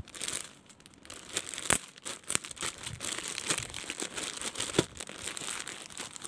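Clear plastic garment bags crinkling and crackling as hands sort through and press on a stack of packaged clothes, with a few sharper snaps.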